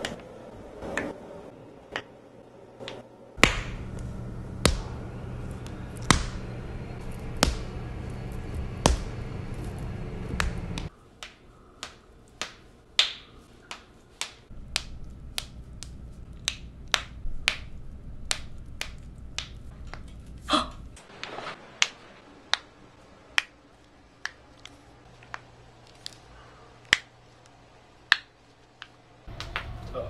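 Toe and foot joints being cracked by hand: a long, irregular series of sharp pops and clicks, several dozen in all, over a low background hum that changes abruptly at several points.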